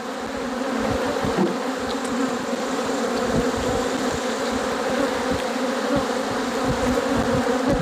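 Many honey bees buzzing in the air around an open hive, a steady, fairly loud hum. The colony is stirred up and defensive after the hive was opened and worked.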